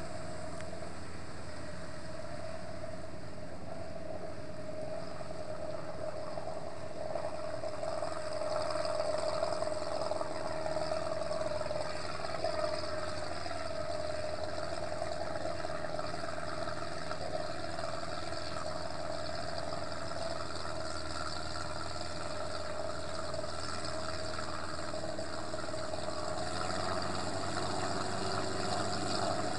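Bandvagn 202 (BV202) tracked amphibious vehicle's four-cylinder petrol engine running steadily while the vehicle swims through icy water, heard from a distance. It gets a little louder, with some rise and fall in pitch, about eight to thirteen seconds in.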